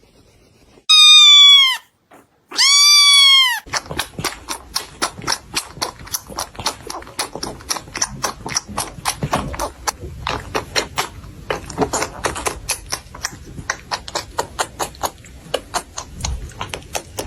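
A cat giving two loud, high meows, each falling in pitch at the end, followed by a long run of rapid clicking and tapping, several clicks a second.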